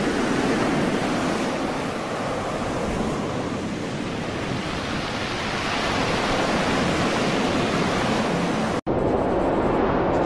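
Steady roar of storm wind and heavy seas, with wind buffeting the microphone. A split-second gap near the end, after which the roar goes on slightly duller.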